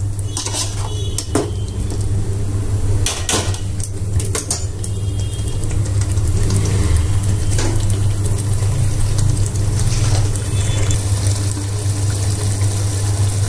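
Metal ladle stirring curry in an aluminium cooking pot, scraping and knocking against the pot several times in the first few seconds, over a steady low hum that continues throughout.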